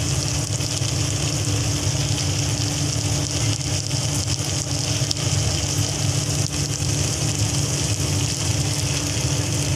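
Steady low mechanical hum with a constant hiss over it.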